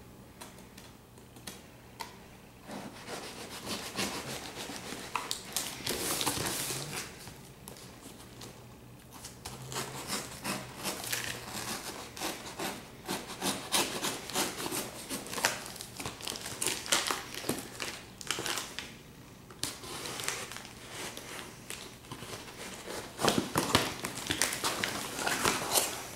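Folding knife blade sawing and slicing through packing tape and cardboard on a taped box, in irregular scrapes and strokes, with the tape crinkling and tearing as the flaps are pulled open.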